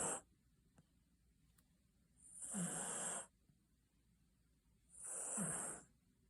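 Basenji dog snoring in its sleep: one snore trails off at the very start, then two more come about two and a half seconds apart. Each lasts about a second and carries a high hiss.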